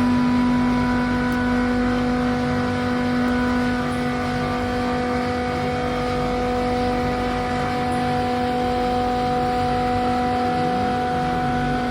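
Chiller compressor running with a steady, even-pitched electrical hum.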